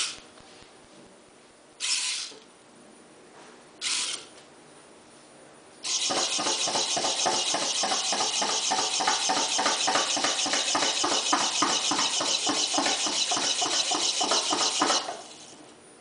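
Hobby servo motors in a small humanoid robot whirring as its joints move: three short whirs about two seconds apart, then a long run of about nine seconds with a fast, pulsing buzz while it works through a sequence of movements.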